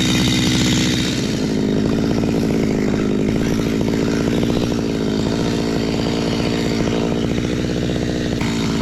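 Stihl chainsaw running steadily.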